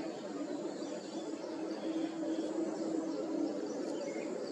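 Steady low background hum with a few faint, scattered bird chirps.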